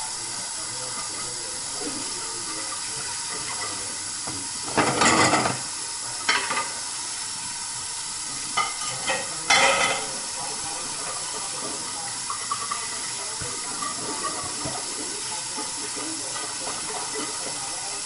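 Kitchen tap running steadily into a sink as a plate is hand-washed under the stream, with a few louder bursts of splashing and knocking where the plate is turned against the flow, about five seconds in and again around nine to ten seconds.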